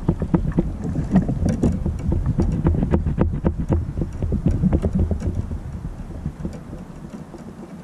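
Wind rumbling on the microphone and water slapping against a plastic kayak hull, with many small irregular knocks and clicks. The rumble eases about six and a half seconds in.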